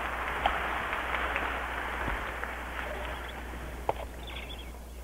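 Large audience applauding, a dense patter of clapping that slowly dies down, on an old recording with a low hum beneath it. Two sharp knocks stand out, about half a second in and near the end.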